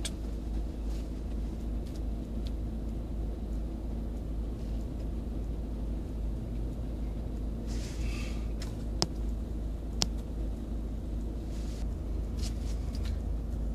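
Steady low rumble of a car heard from inside its cabin in slow stop-start city traffic. Two sharp clicks come about a second apart, about two-thirds of the way through.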